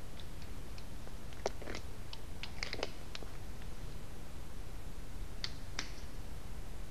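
Scattered light clicks and taps of wiring, a plastic connector and a small hand tool being handled at the underside of a dishwasher, clustered about a second and a half to three seconds in, with two more near the end, over a low steady rumble.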